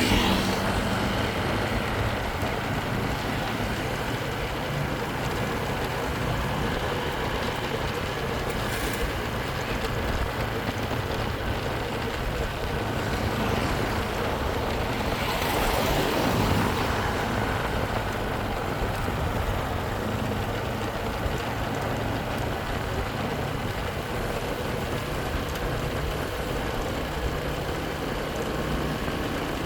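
Motorcycle running steadily on the road, with road and wind noise. A louder swell comes about halfway through.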